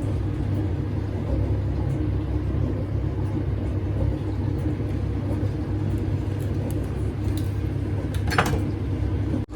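A steady low rumble with a continuous hum, and a short higher-pitched sound about eight and a half seconds in.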